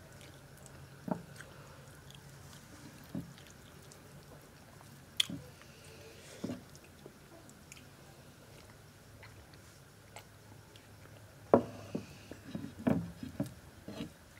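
Close eating sounds: fingers mixing rice pulao and fish on a clay plate, and a mouth chewing. Scattered soft clicks and smacks, a few at first and more in quick succession near the end.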